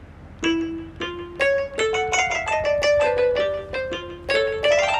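A keyboard instrument in GarageBand for iOS, played by touch on the on-screen keyboard: a quick run of single notes begins about half a second in, with some notes held and overlapping.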